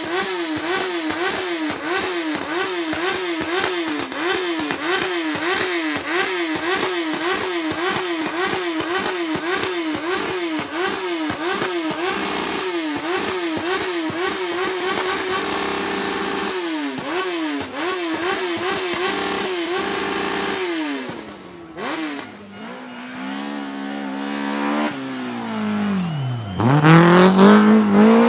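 Rally car engine revved in quick, repeated throttle blips, about two a second, for some twenty seconds. The revs then fall away. Near the end the engine pulls hard from low revs, rising steeply in pitch, and this is the loudest moment.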